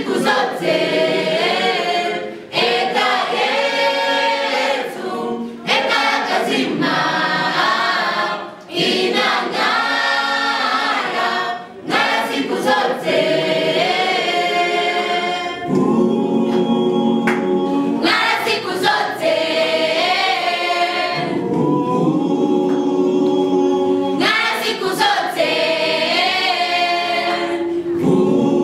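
Mixed choir of students singing unaccompanied, in phrases broken by short breath pauses.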